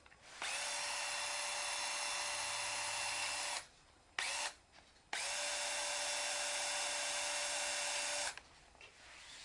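Makita SC101DRF 14.4 V cordless threaded-rod cutter's motor whining steadily in two runs of about three seconds each, with a brief blip between them.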